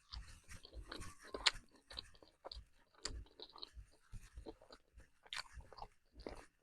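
A person chewing mouthfuls of chicken close to the microphone: irregular wet smacks and small crunches, with a sharper crunch about a second and a half in.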